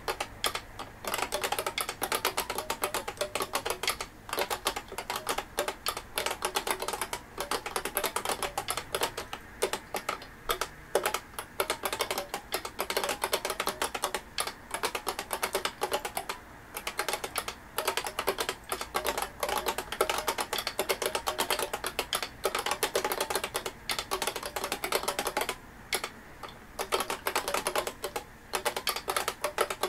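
IBM beam spring keyboard (IBM 5251 type) being typed on at a fast, steady pace: a dense run of key clicks with a brief pause every few seconds.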